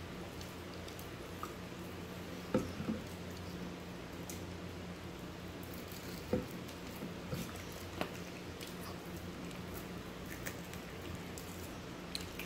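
Quiet eating sounds: soft chewing and mouth noises from children eating fried chicken wings, with a few small clicks and knocks, over a steady low hum.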